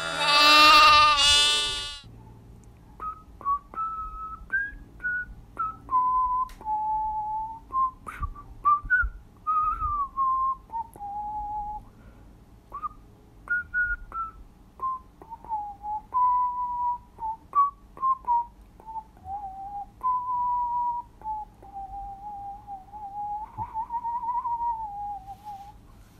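A slow tune whistled as a single wandering melody, with short pauses between phrases and a few faint clicks. It opens with a loud, wavering bright tone of about two seconds.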